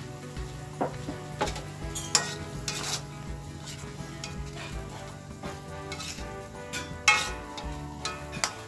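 A spatula stirring food sizzling in oil in a wok, scraping and clinking against the pan. One louder clank about seven seconds in.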